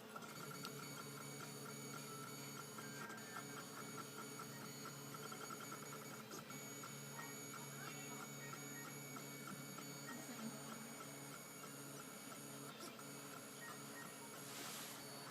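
3D printer's stepper motors whining as the printer moves: several steady tones with a rapid pulsing line in the middle, and a few faint clicks.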